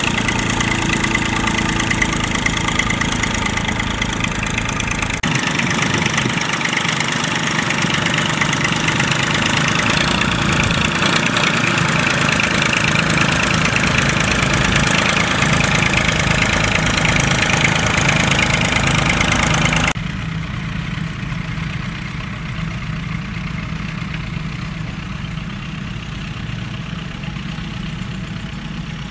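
Massey Ferguson 135 tractor engine running steadily under load as it pulls a three-furrow plough. The sound drops suddenly in loudness about two-thirds of the way through.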